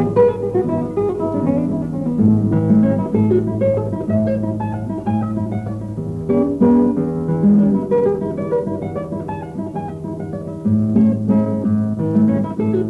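Soundtrack music of a solo acoustic guitar playing quick plucked and strummed notes in a Spanish, flamenco-like style, starting suddenly.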